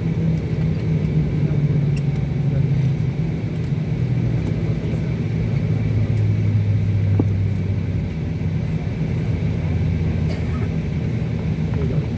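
Steady low drone of an airliner's engines and airflow heard from inside the cabin while the plane taxis slowly onto its stand. The low hum steps down in pitch about halfway through.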